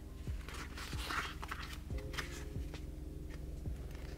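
Pages of a paperback manga volume being turned and handled: soft paper rustles and light taps scattered through, over a faint steady background hum.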